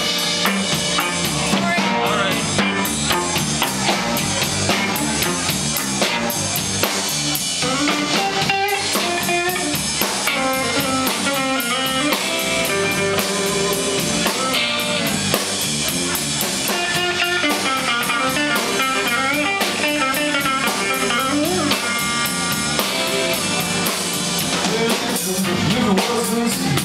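Live blues band playing an instrumental passage: electric guitar lead lines over a steady drum-kit beat and bass guitar.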